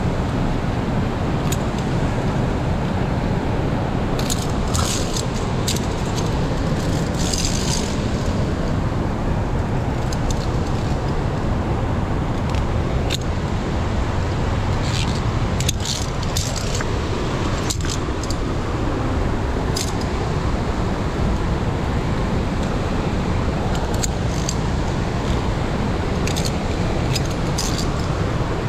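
Via ferrata climbing gear clinking and jingling now and then: carabiners and clip hardware knocking on the steel safety cable, a few short bursts with a longer jangle about seven seconds in. Under it all runs a steady, loud rushing noise.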